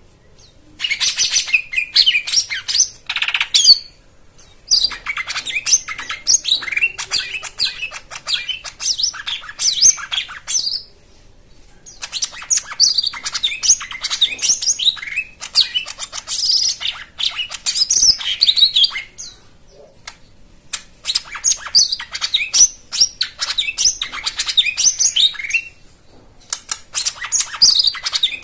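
Lesser green leafbird (cucak ijo mini) singing a rapid, varied, high-pitched chattering song in bouts of several seconds, with short pauses between them.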